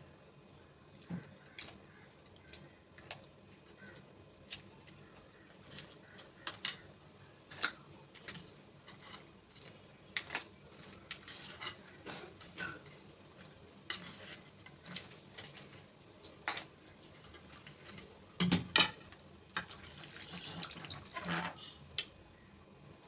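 Metal utensils and dishes clinking and knocking in scattered strokes, the loudest about two-thirds of the way through, with two stretches of splashing water.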